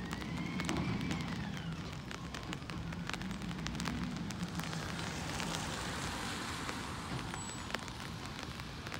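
Peterbilt 320 Amrep garbage truck running down the street, a low diesel drone under a steady crackling hiss, with a whine that rises and then falls in the first couple of seconds.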